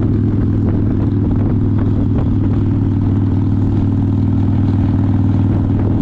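Harley-Davidson V-twin engine running steadily at cruising speed, heard from the rider's position on the moving motorcycle.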